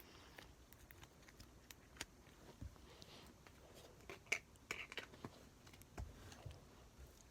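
Slime being squeezed and pulled, faint sticky clicks and small pops scattered through, with a busier cluster of pops about two-thirds of the way in.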